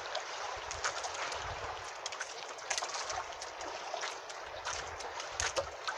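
Water sloshing and trickling against a small outrigger fishing boat, with scattered light clicks and knocks.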